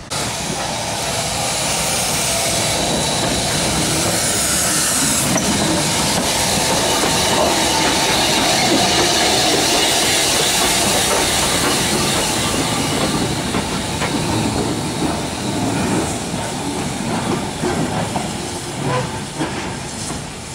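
Steam locomotive rolling slowly past close by, with a loud steady hiss of steam and its wheels clicking over the rails. The sound fades over the last few seconds as it moves away.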